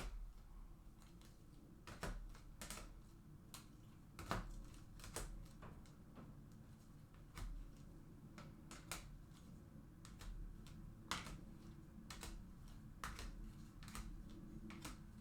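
Faint, irregular clicks and taps of trading cards being sorted and set down on a table, over a low steady hum.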